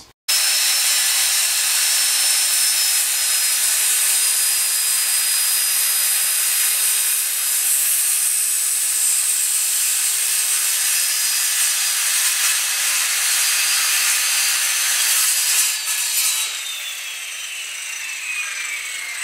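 Electric circular saw cutting through a wood board, running steadily for about sixteen seconds; then the trigger is let go and the motor's pitch falls as the blade spins down.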